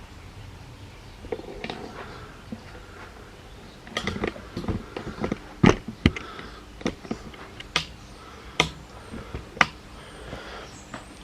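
Irregular clicks and knocks of hard objects being handled and set down, sparse at first and busier from about four seconds in.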